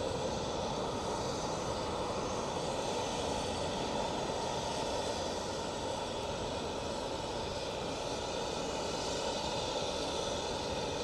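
Boeing 747-8 freighter's four GEnx turbofan engines at takeoff power, a steady jet rush as the jumbo climbs out.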